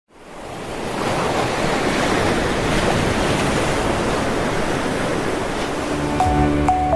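Ocean surf washing steadily, fading in over the first second. Near the end, music with a bass line and a short repeated note starts over it.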